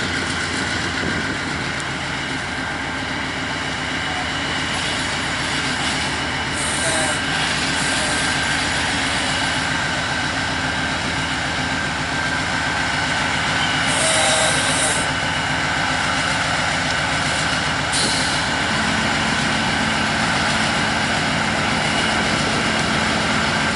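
CSX diesel locomotives rolling slowly past at close range, their engines running steadily. A few brief hisses of air sound partway through.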